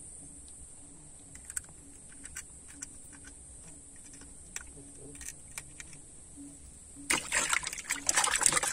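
A few faint clicks, then about seven seconds in, caught piranhas start flapping and splashing hard in shallow water in the bottom of a wooden canoe.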